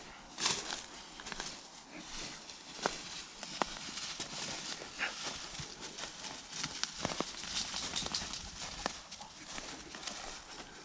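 Footsteps rustling through dry leaves and brush, with many short irregular clicks and snaps.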